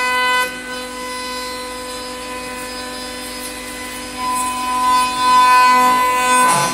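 A 5-axis CNC router spindle milling a wooden chair part: a steady high whine with the cutter rasping through the wood. It drops slightly about half a second in and gets louder from about four seconds in as the cut bites harder.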